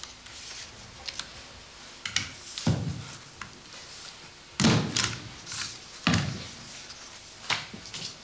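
Three dull thuds about a second and a half apart, with small clicks and paper rustling in between, as papers are handled at an office desk.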